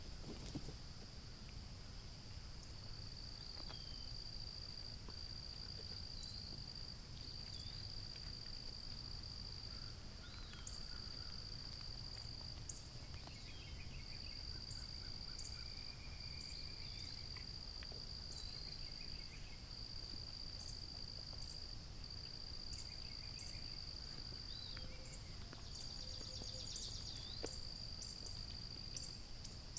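Outdoor insect chorus: a steady high-pitched trill that runs in long stretches with short breaks, with scattered short chirps and calls over it and a low, even background rumble.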